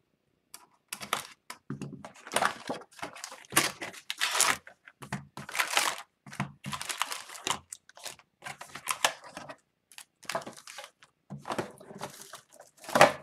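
A box cutter slitting the cardboard of a hockey-card hobby box open, then the wrapped card packs crinkling and rustling as they are pulled out and stacked, in a string of short, irregular bursts.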